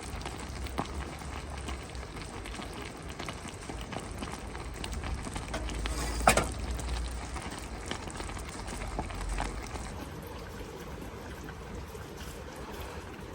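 A pot of chicken hotpot simmering, with a steady bubbling and small ticks. There is one sharp click about six seconds in.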